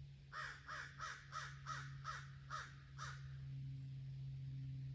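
A crow cawing eight times in a quick, even series lasting about three seconds, over a steady low hum.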